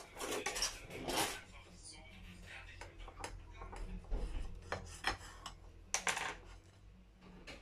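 Kitchen knife cutting a bread sandwich on a ceramic plate: short scraping strokes through the bread and sharp clinks of the blade and plate.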